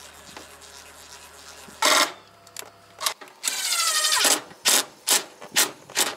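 Cordless drill driving screws into wood: a short run about two seconds in, then a longer run whose motor pitch falls as it loads up, then several quick trigger bursts about half a second apart near the end.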